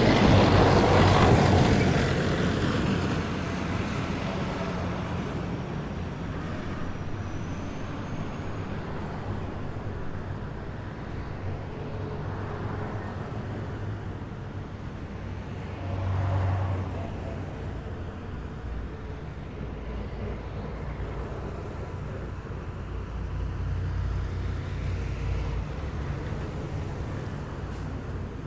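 Heavy military vehicles driving past on a city road: a low diesel engine rumble with tyre and road noise. It is loudest as one passes right at the start and then fades, with a brief swell about halfway through and a slower rise near the end.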